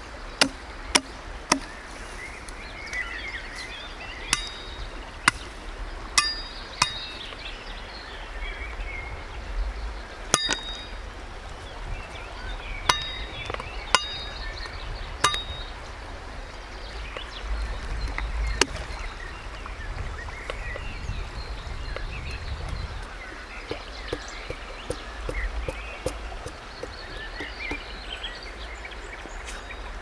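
Serbian chef's knife chopping twigs off a green branch: sharp single strikes, several in quick succession at the start and then spaced a second or more apart, some with a short metallic ring. Birds chirp throughout beneath the strikes.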